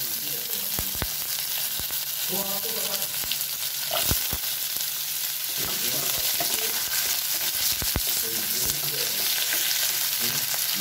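Sliced spiny gourd (kankada) sizzling steadily as it fries in hot oil in a pan. A spatula knocks against the pan now and then.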